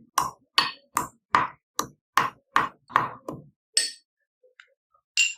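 Kitchen utensil striking repeatedly: nine even knocks, about two and a half a second, then two ringing metallic clinks near the end.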